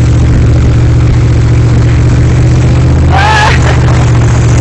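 Truck driving on a snowy road at about 30 mph, a steady low drone of engine and road noise, with a short high-pitched whoop about three seconds in.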